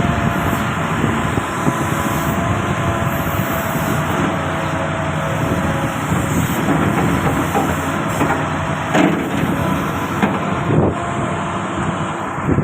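Doosan DX220LCA hydraulic excavator running steadily, its diesel engine and hydraulics working, with a few short knocks in the second half.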